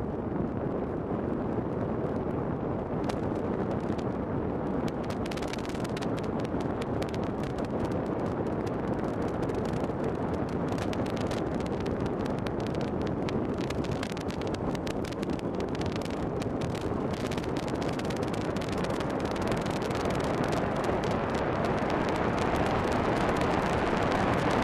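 Wind rushing over the microphone of a bicycle descending at high speed (up to about 52 mph): a steady rush of noise with frequent crackles and pops from a few seconds in, getting slightly louder toward the end as speed builds.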